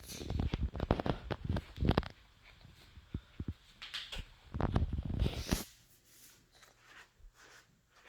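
Golden retriever chewing a snack: clusters of wet, clicky crunches in quick succession, in three spells, fading to occasional faint ticks after about six seconds.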